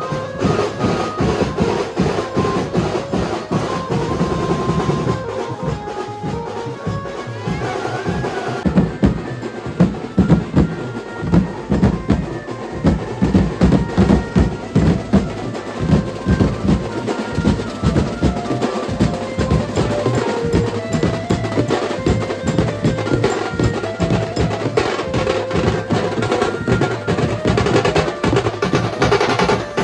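A Mumbai-style banjo party band playing: a melody amplified through horn loudspeakers over many side drums beaten fast with sticks. The drumming grows louder about nine seconds in.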